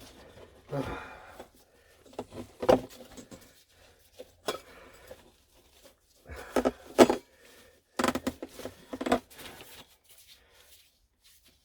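Handling noises from wrapping a diesel heater exhaust pipe with wet exhaust wrap: scattered rustles, taps and knocks with short pauses between them, the sharpest knock about seven seconds in.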